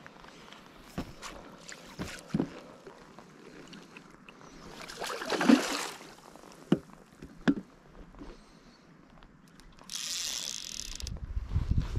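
A hooked rainbow trout splashing and thrashing at the water's surface, loudest about five and a half seconds in, amid scattered small clicks and knocks. A hissing rush starts about ten seconds in, and low rumbling builds near the end.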